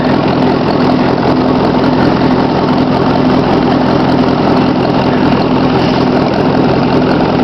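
1954 Ford NAA tractor's four-cylinder gasoline engine running steadily at idle.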